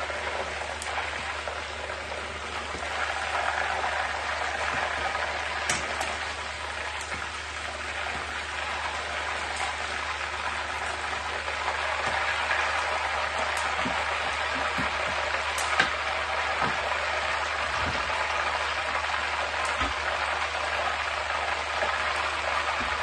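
Chicken pieces deep-frying in hot oil in a wok: a steady sizzle, a little louder in the second half, with a few light clicks of a metal spoon against the pan.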